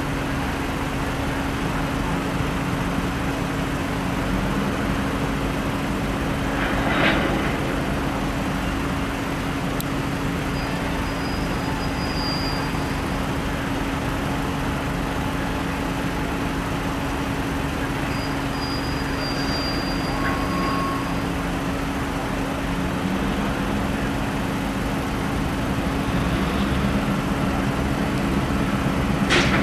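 EMD GP38-2 diesel locomotives idling with a steady drone. Over the last few seconds the engine note climbs and grows louder as the locomotive throttles up.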